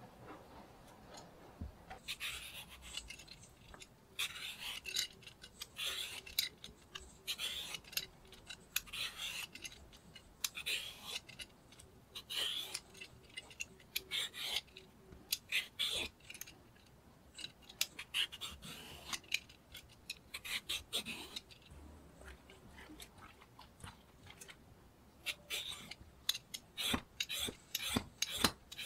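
Vegetable peeler drawn along a cucumber, shaving it into long ribbons: a run of short scraping strokes, about one a second, with a pause a little after the middle before the strokes pick up again.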